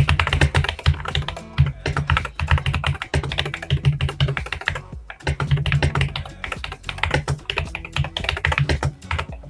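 Typing on a mechanical keyboard fitted with Akko Cream Blue Pro V3 tactile switches, lubed on the stem sides and rails. Fast, dense keystrokes, with a short break about five seconds in.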